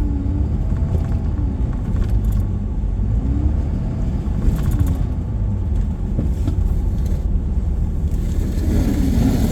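Vehicle engine and tyre rumble heard from inside the cab while driving, steady and low, with a few brief rattles or clicks.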